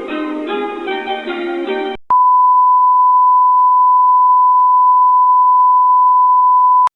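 Plucked-string music cuts off about two seconds in and is replaced by a loud, steady 1 kHz test tone, a single pure beep held for nearly five seconds, which stops abruptly near the end.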